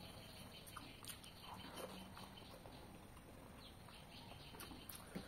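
Near silence, with a few faint soft clicks from eating: mouth-chewing sounds and fingers working rice on a plate.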